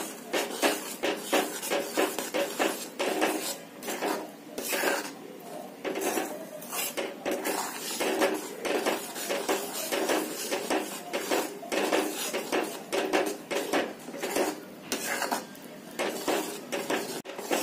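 A spatula scraping and knocking against a metal kadai in quick, irregular strokes as roasted besan is stirred into sugar syrup.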